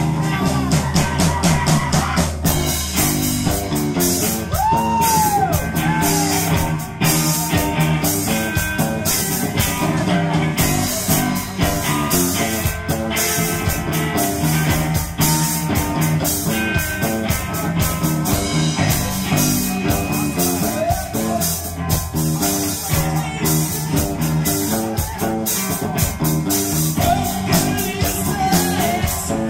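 Live rock band playing: electric guitars over a steady beat, with some singing.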